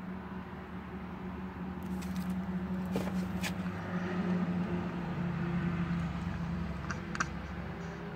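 Steady low engine hum and rumble heard inside a truck cab, growing a little louder in the middle. A few sharp clicks about three seconds in and again near the end.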